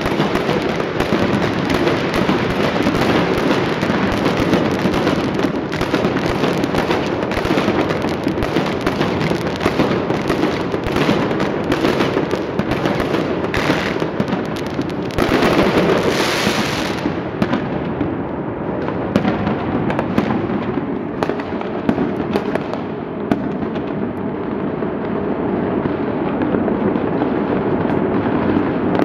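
Dense, unbroken barrage of fireworks and firecrackers, with bangs and crackling overlapping without pause. About seventeen seconds in, the sharp high crackle drops away and the barrage goes on duller.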